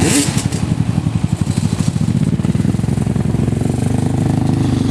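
ATV engine running with a regular low pulsing beat. A short burst of hiss comes right at the start, and about two seconds in the beat quickens and evens out as the engine picks up speed.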